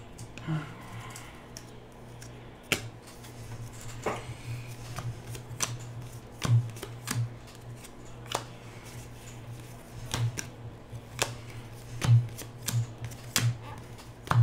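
A stack of 2017 Panini Contenders football trading cards being flipped through by hand: irregular sharp card snaps and slides, about one every second.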